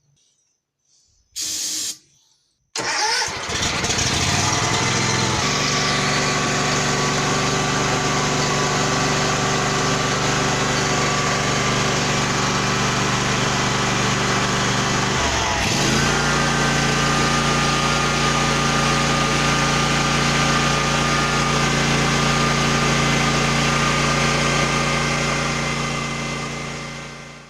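John Deere X300 riding mower engine, on a newly fitted carburetor. It is cranked briefly by the starter, then cranked again and catches about three seconds in, settling into a steady run. About halfway through the engine note dips briefly and shifts to a new steady speed, and it runs smoothly with no popping through the carburetor. The sound dies away at the very end.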